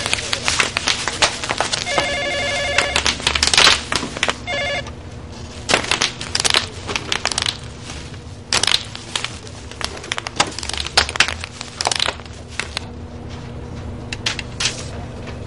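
Bubble wrap being popped by hand, an irregular series of sharp snaps. During the first five seconds a desk telephone rings in a few bursts.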